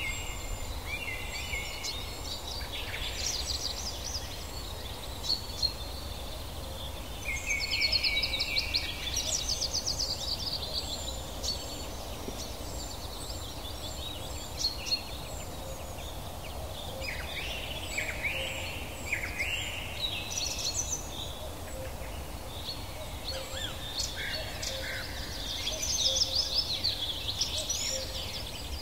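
A mixed chorus of wild birds singing and calling: overlapping chirps, whistles and rapid trills, loudest in bursts of trilling about eight seconds in and again near the end, over a steady low background rumble.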